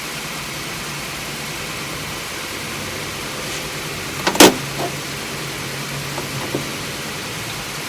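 Steady background hiss with a low hum. About halfway through comes a single loud, sharp metallic clink that rings briefly, as steel tooling is set down, followed by a few faint taps.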